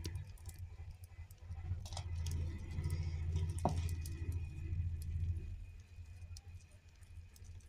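Hands squeezing and pressing soft, sticky flour dough in a stainless steel bowl: dull low thuds with faint wet clicks, loudest through the middle, and a brief rising squeak a little past halfway.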